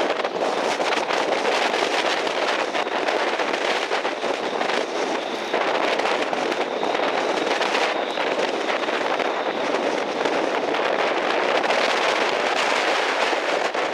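Strong onshore wind and big surf: a steady rushing hiss with constant crackling from gusts buffeting the microphone.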